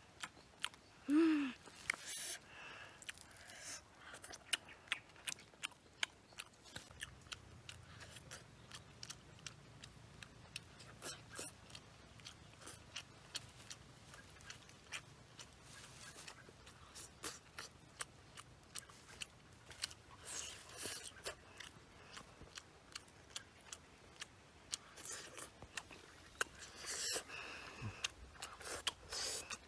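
Close-up sounds of someone eating grilled fish with their fingers: chewing and lip-smacking, with many short wet mouth clicks. A brief low hum about a second in is the loudest sound.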